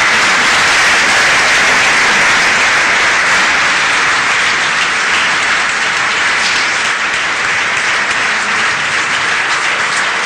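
Audience applauding steadily in a large hall, the sound easing slightly toward the end.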